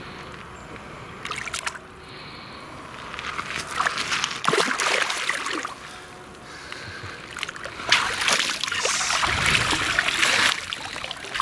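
Lake water splashing and sloshing as a released mirror carp kicks away from the angler's hands, then legs wading through shallow water. Two bouts of splashing, the louder starting about eight seconds in.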